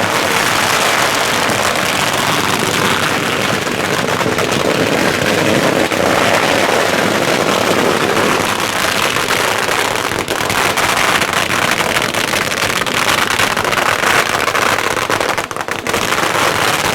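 Long strings of firecrackers going off in a dense, continuous crackle, the bangs running together into one loud rattle. Near the end they thin into more separate bangs.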